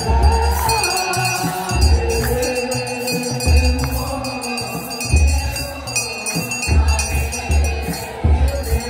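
Ethiopian Orthodox wereb: a youth choir chanting together over slow, uneven deep beats of a kebero drum, with a jingling rattle above.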